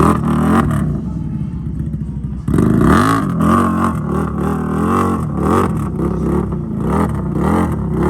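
ATV engine revving hard and over and over, its pitch swinging up and down about twice a second, with an abrupt jump in the sound about two and a half seconds in.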